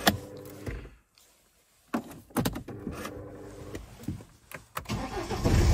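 BMW E87 diesel being started: key clicks and short steady electric whines, then about five seconds in the engine cranks and catches into a loud, steady run. It starts now that the shorted fuel temperature sensor, which had been pulling down the 5-volt sensor supply, is unplugged.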